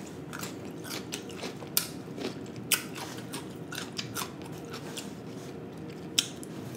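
Close-miked eating sounds: irregular crisp crunches and wet mouth clicks as food is chewed, with a few sharper crunches standing out.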